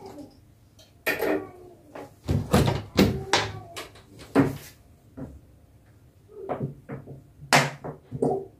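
Plastic bottles and cleaning supplies handled and set down at a ceramic bathroom sink: irregular clunks and rattles, the loudest cluster a few seconds in.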